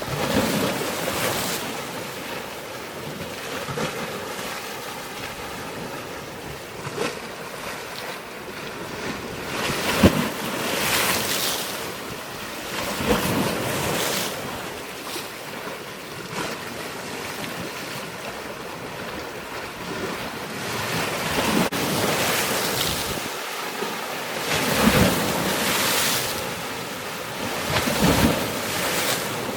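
Waves surging and splashing in irregular swells every few seconds, with wind buffeting the microphone.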